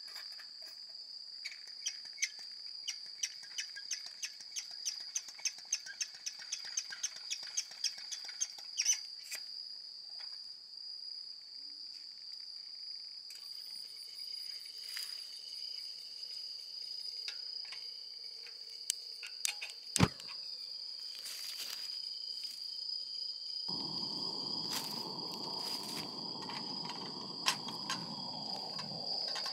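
Insects trilling in one steady high tone throughout. Over the first several seconds a run of sharp clicks comes about two a second, and near the end a low, steady rushing noise sets in.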